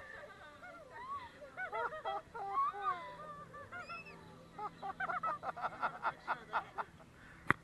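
Small parrots in an aviary calling: short, bending squawks and chirps, with a quick run of short calls in the second half. A single sharp click sounds near the end.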